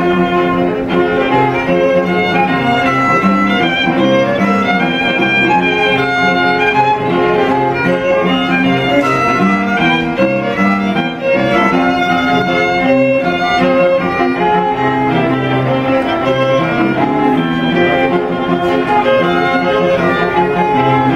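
A string quartet, violins and cello, playing a piece live with continuous bowed notes.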